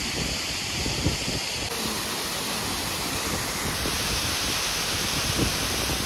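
Steady rush of a waterfall, water pouring and splashing onto rocks and into a pool.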